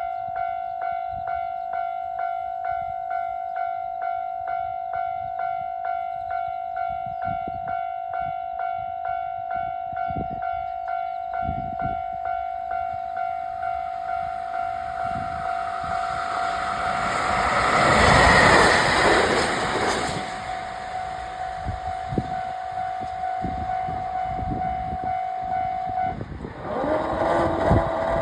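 Level-crossing warning bell ringing steadily, about one and a half strikes a second, while a JR Hokkaido 737 series electric train runs over the crossing, its passing loudest about 18 seconds in. The bell stops about 26 seconds in.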